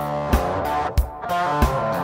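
Background music: guitar over a steady drum beat of about three hits every two seconds, with a brief break just after the hit about halfway through.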